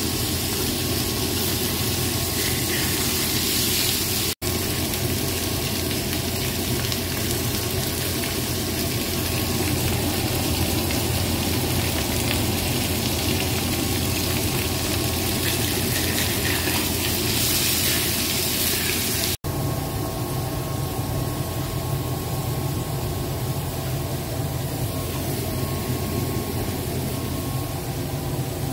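Pieces of hairtail fish frying in oil in a wok, with a steady sizzle over a constant low mechanical hum. The sound cuts out for an instant twice.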